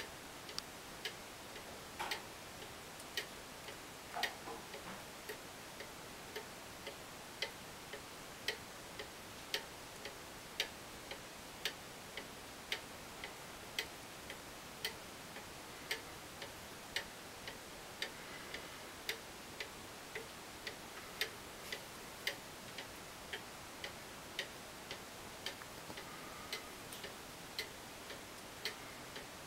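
Chalet-style Black Forest cuckoo clock's pendulum movement ticking steadily, about two ticks a second.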